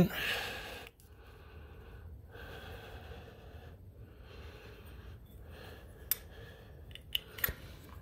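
Slow, steady breathing close to the microphone, with a few light clicks from about six seconds in as the small parts of a carburetor's float assembly are handled.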